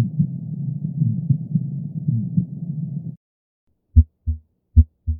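Stethoscope recording of a heartbeat with a functional (innocent) murmur: a steady low rushing noise with a pulsing beat running through it, cutting off suddenly about three seconds in. After a brief silence, normal heart sounds follow: two crisp lub-dub pairs, clean thuds with silence between them, just under a second apart.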